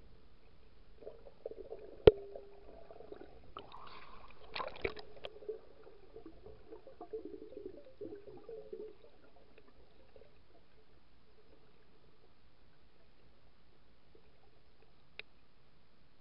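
Muffled underwater sloshing and gurgling heard by a camera submerged in the water, with a sharp knock about two seconds in and a few lighter clicks soon after. It goes faint after about nine seconds.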